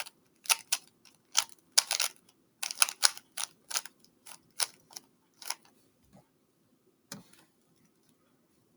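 Rubik's Cube layers being turned by hand, clicking sharply a few times a second at an uneven pace, some clicks in quick pairs. The clicking stops about five and a half seconds in, and a single knock follows near seven seconds.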